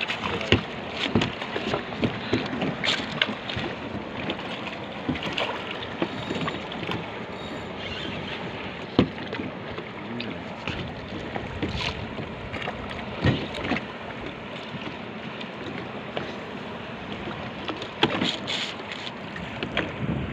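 Water splashing and sloshing alongside a small fishing boat while a hooked queenfish is played at the surface. Wind buffets the microphone, and short knocks and splashes come through irregularly.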